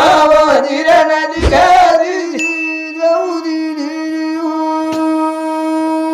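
Folk singing over a steady instrumental drone: a voice sings a bending melodic line for the first couple of seconds, then the drone holds on alone at one pitch.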